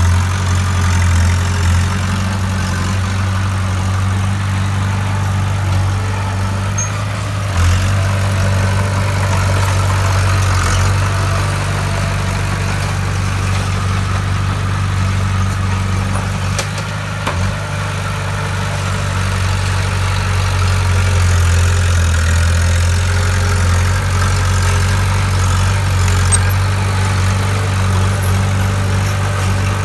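Bulldozer's diesel engine running steadily with a low drone, and a couple of brief knocks about a third and halfway through.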